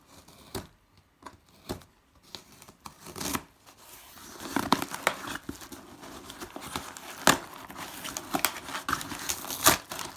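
Shipping package being opened by hand: a few light handling clicks, then from about four seconds in, a continuous run of packaging tearing and crinkling with several sharp rips.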